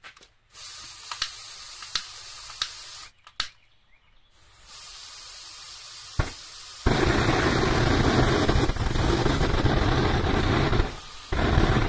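Aerosol spray can hissing in two bursts, with a few clicks, then the spray is lit by a lighter and burns as a makeshift flamethrower, a loud rushing flame that runs on, with a brief break near the end.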